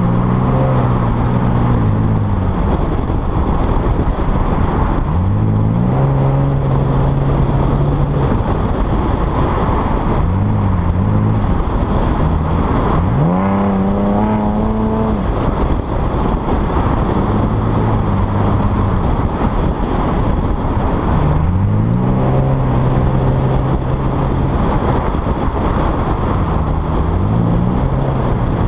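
Chevrolet Camaro engine accelerating and easing off again and again, its pitch rising and falling with each pull, with one long steep climb to a higher pitch about halfway through. Heavy wind and road noise come from a camera mounted outside on the car's flank.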